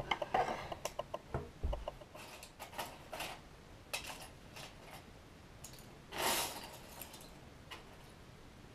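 Plastic Lego bricks clicking and tapping as they are pressed together and handled on a tabletop, a quick run of small clicks over the first few seconds. A brief rustle about six seconds in.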